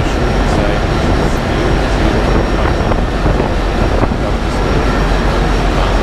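Steady machinery noise in a ship's machinery space: a continuous dense rumble over a low hum, with no single event standing out.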